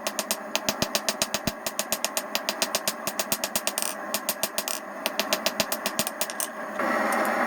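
Power hammer striking a hot cable-damascus billet to flatten it, in a fast, even run of about six blows a second. Beneath it runs a steady rushing noise that grows louder near the end.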